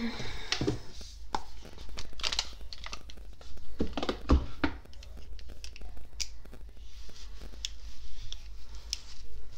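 Rustling with scattered clicks and knocks from someone moving and handling things close to a desk microphone, including putting on a pair of glasses.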